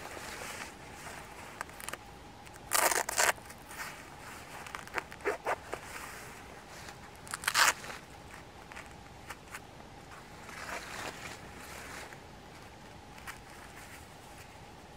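Short bursts of fabric rustling and scraping as combat trousers are tugged and adjusted while being worn, the loudest about three seconds in and again near eight seconds, with smaller ones between.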